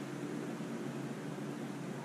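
Steady low hum and hiss of background noise, with no distinct event.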